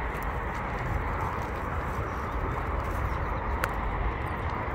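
Steady outdoor background noise with a low rumble, as of wind on the microphone, and one sharp click about three and a half seconds in.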